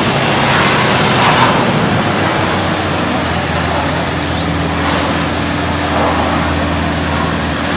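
Toyota Hilux pickup's engine running steadily under load, its pitch shifting about three seconds in, while the truck is bogged in mud. A rushing noise swells over the engine about a second in and again around six seconds.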